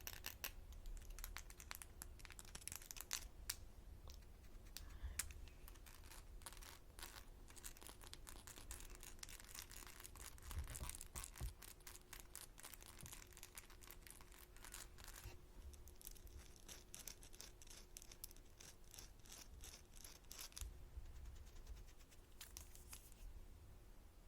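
Fingernails tapping, then scratching on an earring: a dense, faint run of small clicks and scratchy rasps.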